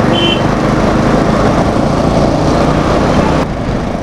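Motorcycle running at road speed in traffic, with wind and road noise on the on-bike microphone. There is a brief high beep near the start, and the sound drops suddenly and grows duller about three and a half seconds in.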